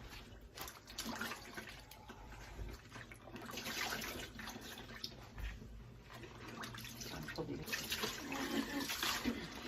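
Water splashing and sloshing in a sink as clothes are rinsed by hand in hand-hot water, in uneven swells, with two louder stretches near the middle and near the end.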